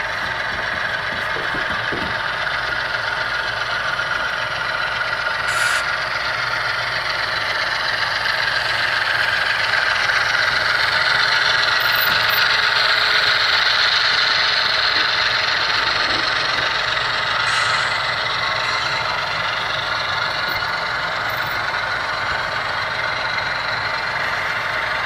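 HO-scale model diesel locomotives and grain hopper cars rolling past on the track: a steady whir and rattle of the running train that grows louder about halfway through as the locomotives pass closest.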